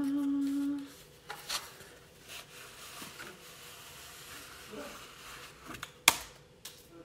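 A sung 'da' held for about a second, then quiet handling of a paper envelope and a hardcover sketchbook: faint paper rustle with a few light clicks, and one sharp snap about six seconds in.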